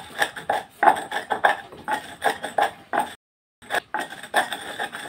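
Wooden pestle pounding in a small metal bowl: a steady run of knocks, about three a second, each with a short metallic clink, broken by a brief silent gap about three seconds in.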